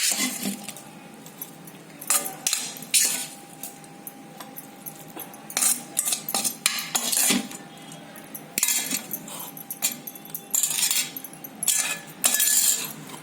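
Metal spoon scraping and knocking against a cooking pan in irregular strokes as cooked gongura leaves are spooned out into a mixer jar.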